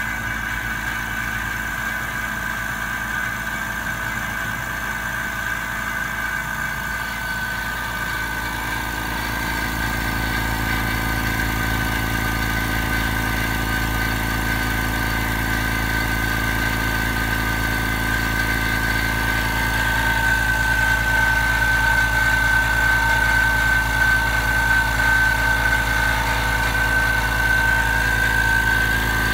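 Anest Iwata PIXIE FX7601 oil-free air compressor with a 0.55 kW motor, running steadily: a constant high whine over a low hum. It grows a little louder twice along the way.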